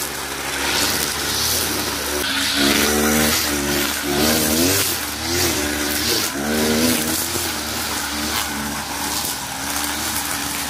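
Brush cutter with a Kawasaki TJ45 two-stroke engine running and revving up and down as the throttle is worked, the pitch rising and falling every second or two. A hiss of cut grass rides over it with each sweep of the cutting head.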